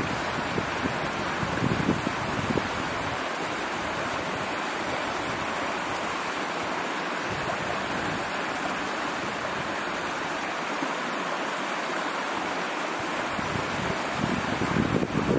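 Steady outdoor rushing ambience, with wind buffeting the microphone as low rumbles in the first few seconds and again near the end.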